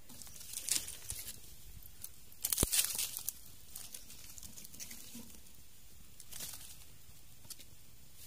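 Dry twigs and leaves crackling and rustling in short irregular bursts, with a sharp snap about two and a half seconds in.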